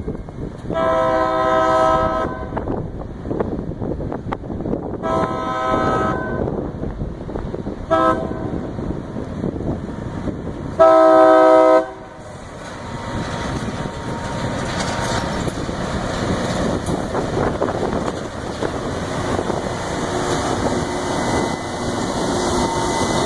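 Rail grinder's horn blowing the grade-crossing signal: two long blasts, a short one and a final long one, followed by the steady rumble of the grinder on the rails, growing louder as it approaches.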